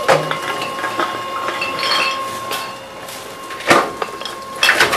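Tomra T-63 reverse vending machine taking in a bottle: a steady motor whine, with clinking knocks as the bottle is handled and drops, the loudest about two-thirds of the way in and another near the end.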